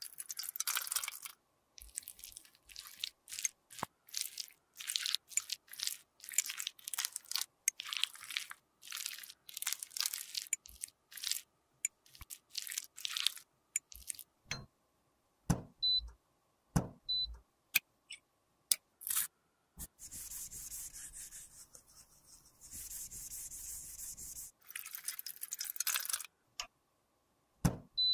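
Many short, close-up scraping and crunching strokes of cosmetic product being worked with a spatula, then a few sharp clicks with tiny high beeps, and a steady hiss lasting about five seconds near the end.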